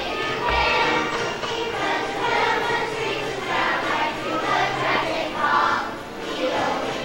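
Song played back over the hall's loudspeakers, with a class of young children singing along in chorus.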